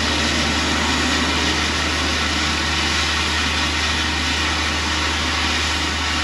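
An engine idling steadily: a constant low hum under an even hiss, unchanging throughout.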